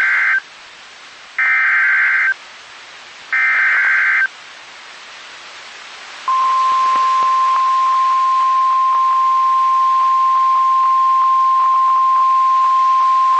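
Emergency Alert System SAME header: the tail of one burst of warbling digital data tones and two more bursts of about a second each, about two seconds apart. After a short pause, about six seconds in, NOAA Weather Radio's single steady 1050 Hz warning alarm tone starts and holds, signalling that a weather warning is being broadcast.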